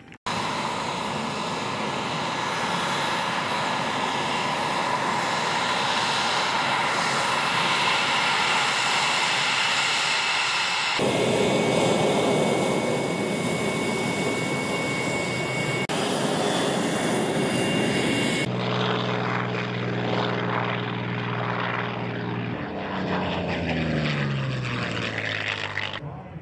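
Loud steady jet aircraft noise across two edited shots, the second with a high whine over the roar, from the F-22 Raptor's engines. Then a P-51 Mustang's piston engine drones steadily and passes overhead, its pitch falling near the end.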